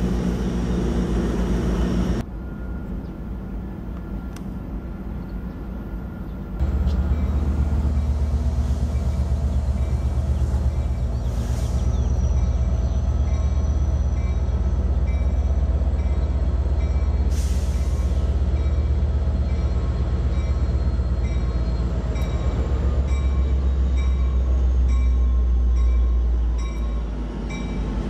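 Metrolink diesel locomotive running with a deep, steady rumble as the commuter train approaches. The sound changes abruptly twice in the first seven seconds.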